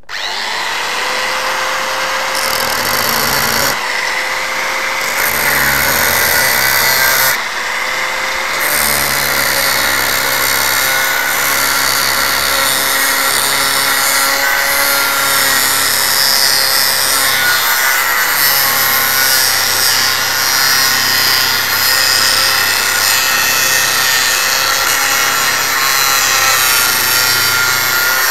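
Angle grinder starting up with a quick rising whine, then cutting steadily into the aluminium can of a 3-farad car-audio capacitor: a loud, continuous grinding with a constant motor tone.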